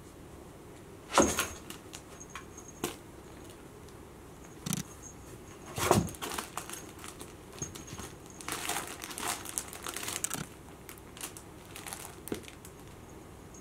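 A kitten scrambling and pouncing in play, with thumps and scuffs against a cardboard box and a nylon pop-up play tunnel. The loudest thumps come about a second in and about six seconds in, followed by a few seconds of crinkly rustling of the tunnel fabric.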